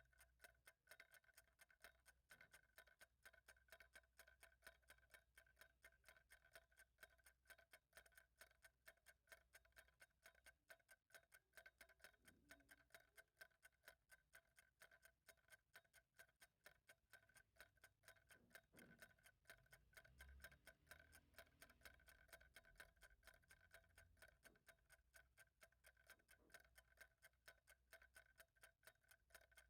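Faint, steady ticking of a clock, fast and perfectly even.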